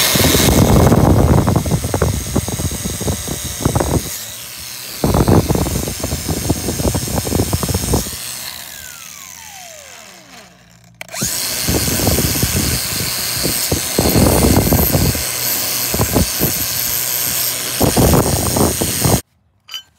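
Power-tool wire wheel scrubbing old finish and grime off metal roof-rack parts, in several bursts. About eight seconds in, it is let off and its whine falls away as it spins down. It then runs again until it cuts off suddenly near the end.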